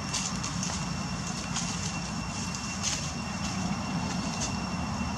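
Steady outdoor background noise: a low rumble with a thin, steady high-pitched whine over it and a few faint crackles.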